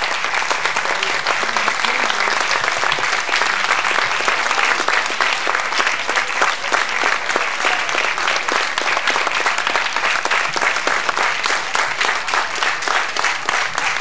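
A large audience applauding, a dense, steady sound of many hands clapping.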